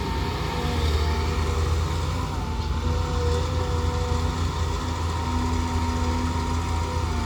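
Hydraulic excavator running under load while digging and loading soil: a steady low diesel hum with thin whining tones that drift up and down in pitch as the hydraulics work.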